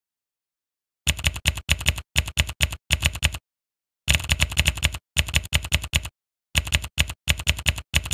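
Typing sound effect: rapid clacking key strikes in three bursts with short pauses between them, starting about a second in, to go with on-screen text being typed out.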